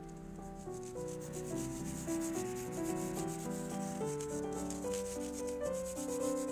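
Fine-mesh sieve shaken or tapped over a cake, dusting powdered sugar: fast, even scratchy rasping at several strokes a second. Soft melodic background music plays underneath.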